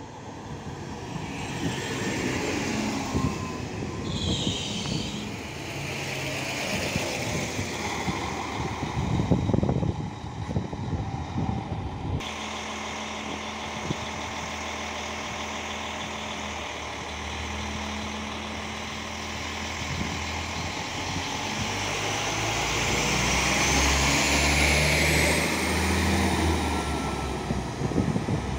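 SA139 diesel multiple unit (a PESA Link railcar) running on the line: a steady diesel engine drone, with a high whine climbing in pitch over the last several seconds. The first dozen seconds are gustier and more irregular, with wind buffeting the microphone.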